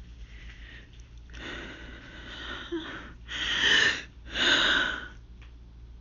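A young woman's hayfever sneezing attack: a few seconds of gasping build-up breaths, then two loud breathy bursts about a second apart, near the end.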